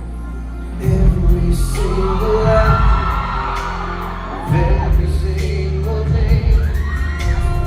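Live pop band performance: a male lead vocal sings over drums, bass and keyboards. The band grows fuller about a second in.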